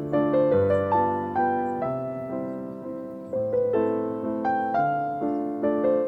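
Background piano music: a gentle, steady run of notes and chords, each note struck and fading away.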